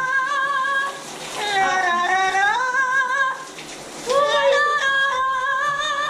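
Yellow-naped Amazon parrot singing opera-style: three long, wavering notes with short breaks between them.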